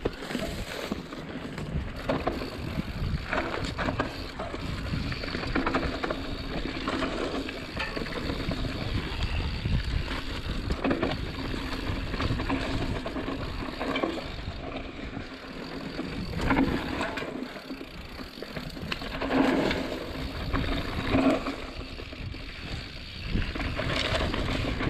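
Mountain bike rolling fast down a dirt trail: a steady rumble of tyres on the ground, with frequent knocks and clatters as the bike hits bumps and roots.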